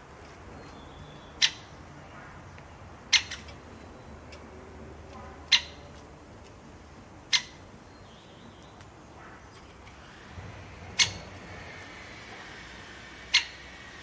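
Great spotted woodpecker at a seed feeder making six short, sharp single sounds, spaced irregularly a second and a half to three and a half seconds apart, over a faint steady background hiss.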